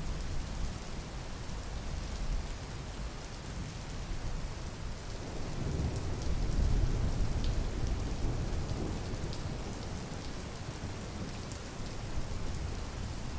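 Steady rain falling, with fine pattering drops. A low rumble of thunder swells about five seconds in and fades away a few seconds later.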